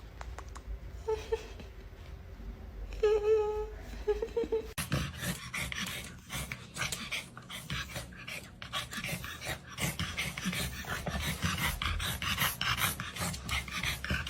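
A dog whining briefly twice over a low rumble. From about five seconds in, a dense run of scratchy, clicking noise follows.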